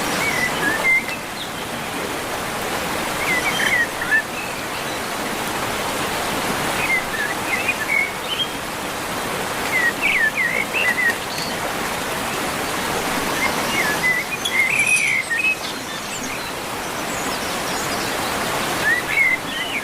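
Steady rush of flowing water, with short clusters of bird chirps breaking in every few seconds.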